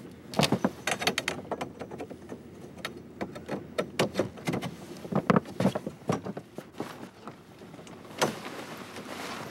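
Aluminium frame poles clattering and knocking as they are fitted into the plastic base of a portable ice shanty, with canvas rustling near the end as the cover is pulled over the frame.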